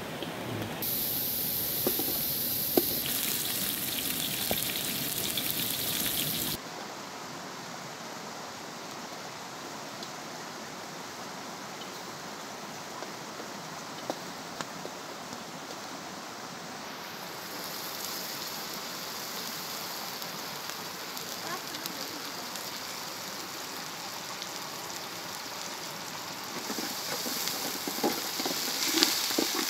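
Steady hiss of food sizzling in an aluminium pot over a wood fire, louder for the first six seconds and then dropping suddenly. Near the end a ladle scrapes and clinks in the pot as it is stirred.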